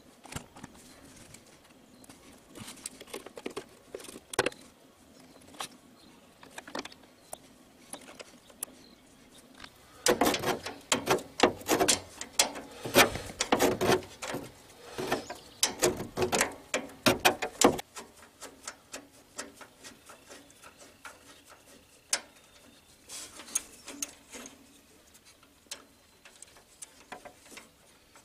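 Hand tools clicking and clattering on an Onan generator's carburetor, with a dense run of rapid ratcheting clicks in the middle as the carburetor's mounting bolts are turned.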